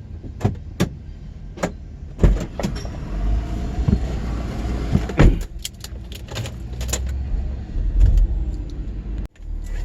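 Steady low rumble of a car, with a dozen or so sharp clicks and knocks spread through it, from things being handled in and around the car.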